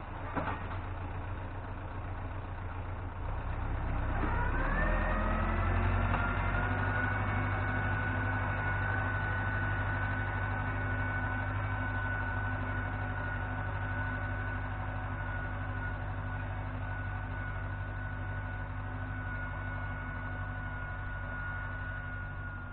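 Tractor diesel engine pulling a plough: it revs up about four seconds in, then runs steadily at high revs, growing slightly fainter near the end.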